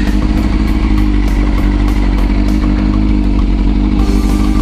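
Kawasaki ZRX400 inline-four motorcycle engine running at a steady pitch, with low wind rumble on the helmet microphone.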